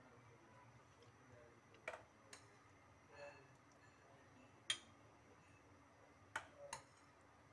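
Metal spoon clinking against a glass bowl and a serving glass while scooping soft fruit trifle: about five short, sharp clinks spread out over near silence.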